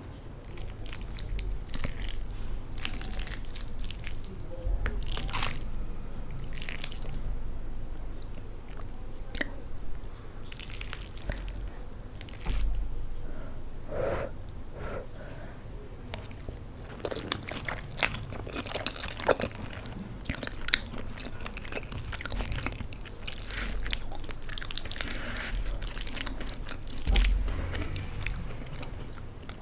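Close-miked eating of Maggi instant noodles: chewing with many short, irregular wet mouth clicks.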